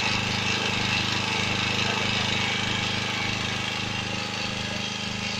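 Honda EG1000 portable generator's engine running steadily on LPG through a converter kit, its petrol tap shut off, while it powers a load of electric lamps.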